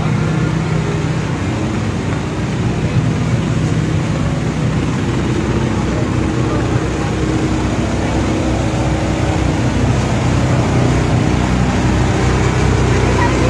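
An engine runs steadily, a continuous low drone, under the voices of a crowd milling about.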